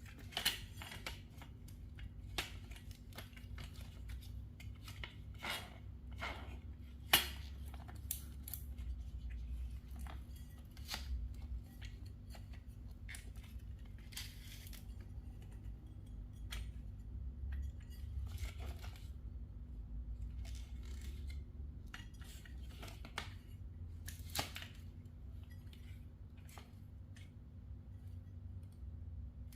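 Irregular light clicks and clinks of small hard objects being handled, over a steady low hum.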